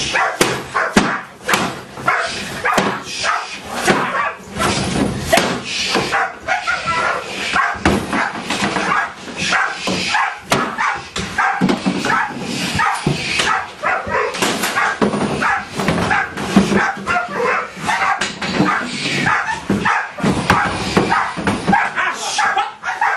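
Large dark dog barking over and over in quick succession.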